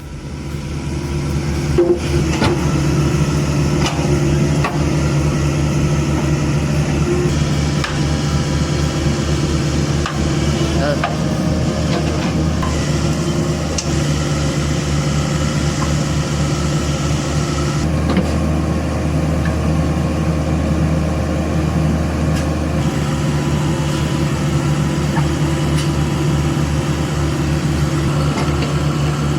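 Heavy diesel engine of earthmoving machinery running steadily under load, with a few sharp metallic clanks in the first half and a shift in the engine note a little past halfway.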